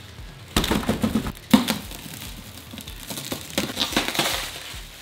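Plastic stretch wrap around a new dirt bike tire crinkling and crackling as it is handled and pulled at, with two sharp bumps about half a second and a second and a half in as the wrapped tire is handled and put down.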